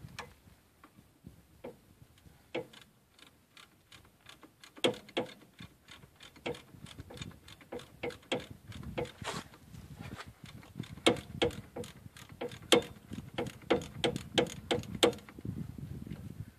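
Hand socket ratchet clicking as a bolt is worked: sharp ticks, sparse at first, then in quick irregular runs from about five seconds in.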